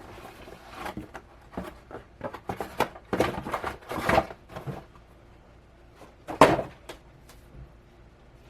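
Cardboard box and mount parts being handled: a quick run of knocks, clicks and rustles, with one louder knock about six and a half seconds in.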